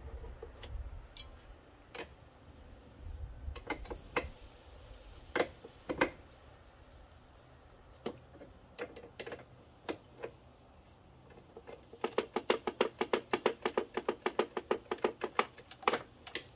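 Metal wrenches clinking and clicking against the fuel line fitting at a fuel rail, in scattered single clicks and then, near the end, a fast even run of clicks, about eight a second, for a few seconds.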